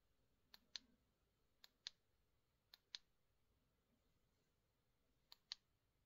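Four quiet double clicks from the Nitecore Thumb flashlight's push switch as it is pressed and let go. Each is a softer click then a sharper one about a fifth of a second apart, switching the light between off and its brightness modes.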